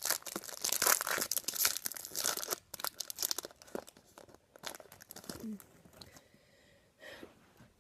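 A trading-card pack's wrapper being torn open and crinkled by hand, with dense crackling for the first few seconds that thins to scattered crinkles as the cards are pulled out.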